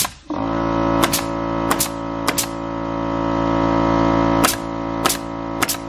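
Pneumatic nail gun firing nails into wooden trim boards, about ten sharp shots, some in quick pairs. Over them an air compressor runs with a steady hum, kicking on just after the first shot to build pressure back up.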